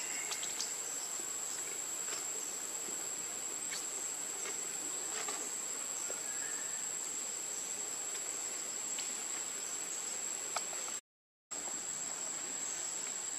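Insects calling in a steady, unbroken high-pitched tone over a faint outdoor hiss, with a few faint clicks. The sound cuts out completely for about half a second near the end.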